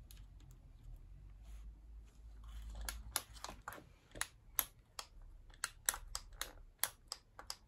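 Light, irregular plastic clicks, about two or three a second from about three seconds in, from a cordless nail gun's trigger and controls being worked while it is held against a block of wood.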